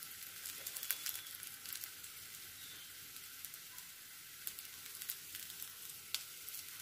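Oil sizzling in a frying pan as small carrot and onion patties shallow-fry over low heat: a steady hiss with scattered sharp crackles and pops.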